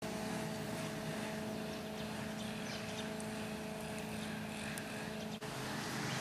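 A steady motor drone holding a few even tones over outdoor background noise. The drone stops abruptly about five and a half seconds in.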